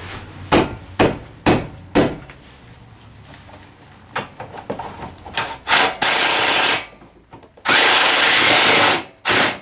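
Four sharp knocks about half a second apart, then a handheld power driver running in bursts as it drives in the rack bolts: a short run, a longer run of over a second, and a brief final blip.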